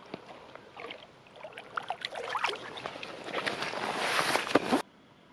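Water splashing and sloshing in irregular bursts, building up and loudest near the end, then stopping abruptly.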